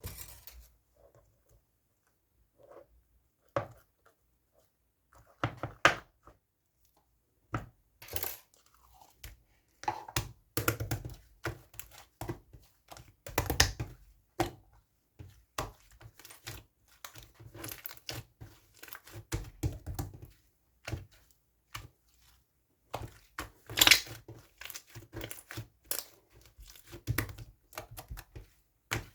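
Hands squeezing and pressing slime, popping trapped air bubbles in irregular clicks and crackles. The pops are sparse in the first few seconds and come thick and fast from about ten seconds in.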